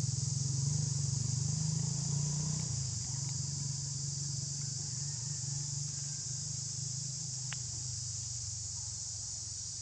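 Steady high-pitched insect chorus over a steady low hum that slowly fades, with a single faint click about three-quarters of the way through.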